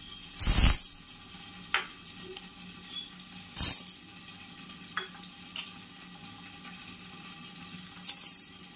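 Dry lentils and whole spices rattling against a stainless steel kadai as urad dal and black peppercorns are tipped in for dry roasting. The sound comes in short bursts: the loudest about half a second in, another just before four seconds, and a shorter one near the end, with a few single clicks between them.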